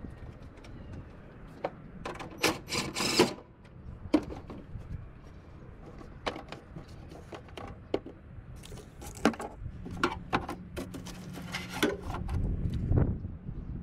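Scattered clicks, knocks and rattles of hand tools and metal parts being handled, with a louder burst of rattling about three seconds in. A steady low hum starts about ten seconds in.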